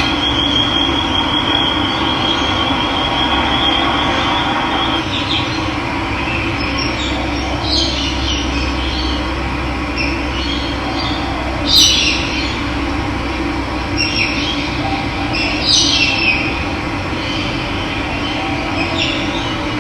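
Steady rush of running water, with birds chirping in short calls scattered through it, the loudest about twelve seconds in. A thin high trill sounds over the water for the first few seconds.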